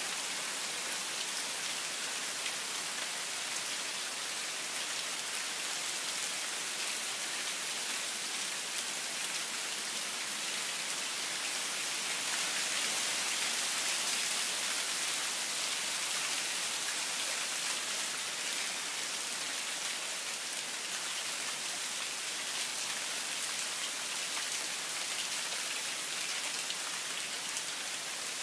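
Steady rain falling on dense foliage, an even patter that grows a little heavier around the middle.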